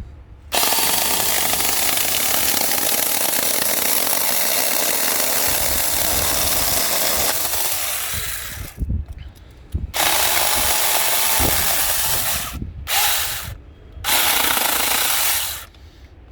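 Cordless 21 V mini pruning chainsaw with a brushed motor running while cutting a stick: one long run of about eight seconds, then three shorter stop-start bursts.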